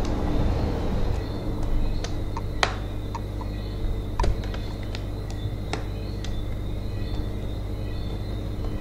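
Light plastic clicks and taps, scattered and irregular, as the keyboard of a Dell Inspiron Mini 1018 netbook is pried loose and lifted, over a steady background hum.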